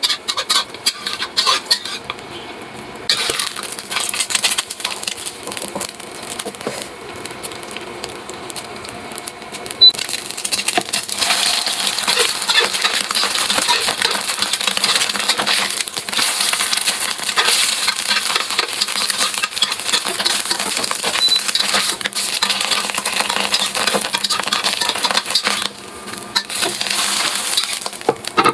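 Cooking in a pan: utensils clicking against the pan, then a steady sizzle of frying from about ten seconds in, with clicks again near the end.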